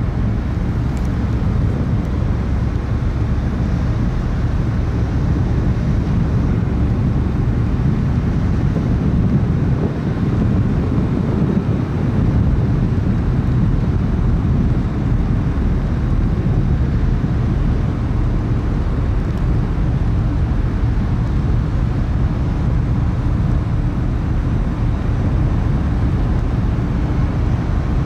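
Steady low rumble aboard the car ferry Calanthe Okushiri under way, its engines droning with rushing noise, with no clear change across the stretch.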